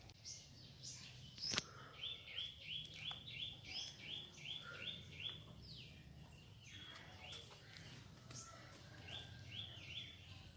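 A bird calling faintly: a quick series of short, falling, high chirps, about three a second, from about two seconds in, then a few more near the end. A single sharp click about a second and a half in.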